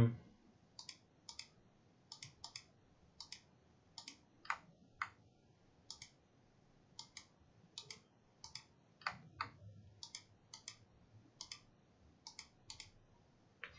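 Computer mouse clicking: about 25 soft, short clicks spaced irregularly, roughly one or two a second and some in quick pairs, as vector segments are clicked one by one with a CAD trim tool.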